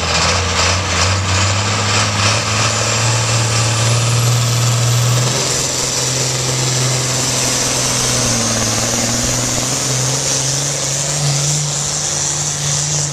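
Ford 9600 tractor's six-cylinder diesel engine running under heavy load while pulling a weight-transfer sled, a loud steady drone whose pitch rises a little near the end.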